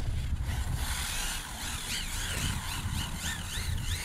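Whine of the sensored Reedy brushless motor, freshly rebuilt with a new rotor, driving a four-wheel-drive short course RC truck; from about two seconds in its pitch rises and falls several times as the throttle is worked. A low wind rumble on the microphone runs underneath.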